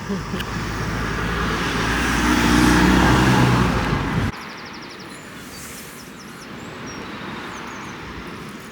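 A motor vehicle driving past close by: engine and tyre noise builds to a peak about three seconds in, with the engine pitch falling as it goes by. The noise cuts off suddenly after about four seconds, leaving quiet street ambience.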